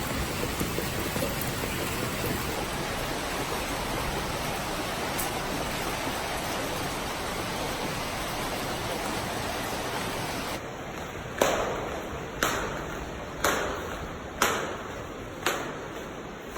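Heavy rain pouring down as a steady hiss. About two-thirds of the way through the sound changes, and five sharp hits follow, about a second apart, each dying away quickly.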